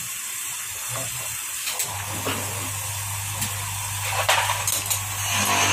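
Gas torch flame hissing steadily. A low steady hum joins about two seconds in, and a couple of brief louder rushes of hiss come near the end.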